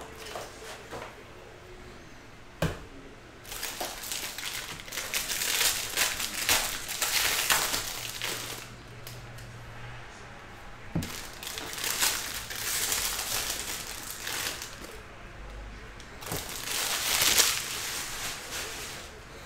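A stack of baseball cards being handled and flipped through by hand: crisp rustling and crinkling in three stretches of a few seconds each, with a sharp tap about two and a half seconds in.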